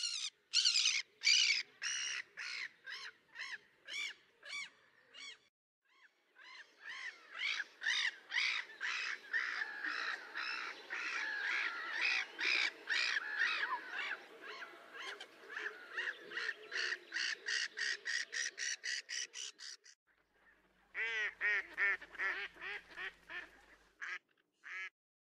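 Waterbirds calling in long, evenly spaced runs of calls, two to three a second, in three stretches broken by short gaps. The first run fades away, and the last cuts off suddenly near the end.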